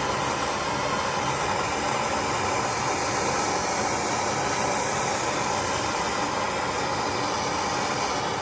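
Handheld gas torch flame burning with a steady hiss, heating a copper pipe joint that is not yet hot enough to draw in the solder.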